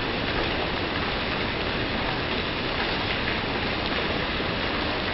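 Rain falling steadily on a paved courtyard: an even, unbroken hiss of a downpour.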